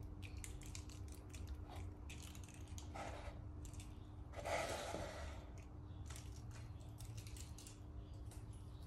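A cardboard watch box is handled and set on a table: faint scattered light clicks and rustles, with a soft scuff about three seconds in and a louder one about four and a half seconds in.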